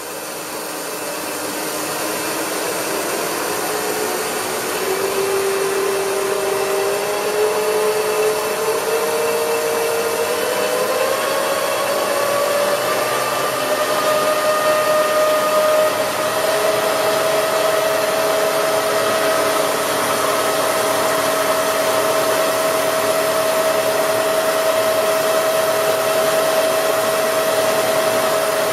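Rotary table drive of a Union BFT125/5 horizontal boring machine running as the table turns, a whirring whine that climbs in pitch and grows louder as the variable speed is stepped up. It then holds at a steady pitch for the second half.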